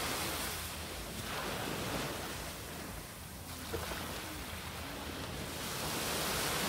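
Surf washing onto a sandy beach, a steady rush that swells and fades.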